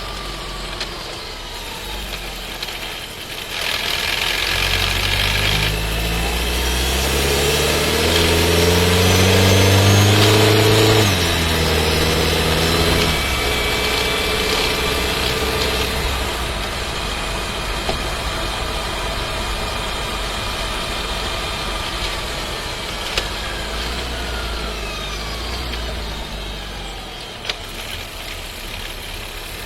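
Skoda Scala's 1.5 TSI four-cylinder turbo petrol engine and seven-speed dry-clutch DSG (DQ200), heard inside the cabin while accelerating with a rattle. Engine pitch climbs for several seconds, drops sharply at a gear change about eleven seconds in and again shortly after, then settles into a steady run. The owner takes the rattling as a transmission fault.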